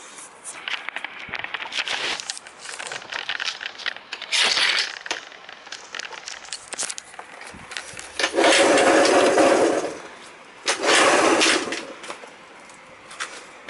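Suzuki Mollet moped engine being started, firing in short bursts of a second or two, twice, amid irregular clattering and scraping; this is the abnormal engine noise the owner is recording.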